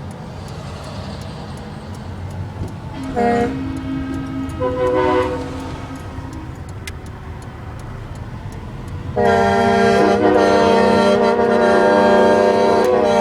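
Semi-truck air horns over a low traffic rumble. A few short multi-note blasts come about three to five seconds in, then from about nine seconds in a long, loud horn chord holds steady.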